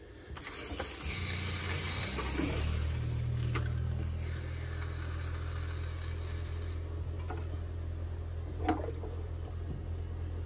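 RV water pump kicking on about half a second in and running with a steady hum, while RV antifreeze rushes from the kitchen faucet into the sink. The rush of liquid stops at about seven seconds when the faucet is closed, with a single knock near the end, and the pump keeps running.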